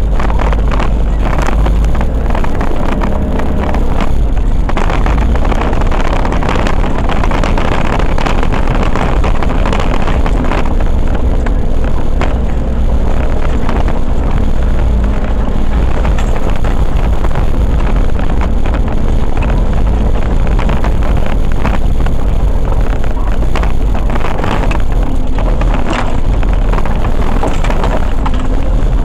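Off-road 4x4 driving over a rough, muddy track, heard from the vehicle itself: engine and drivetrain running under a steady, deep rumble with rattling and road noise from the rough ground.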